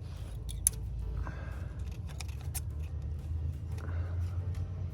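Light metallic clicks and taps of a steel straightedge and feeler gauge being worked on a cast engine block's deck while it is checked for warpage, over a steady low hum.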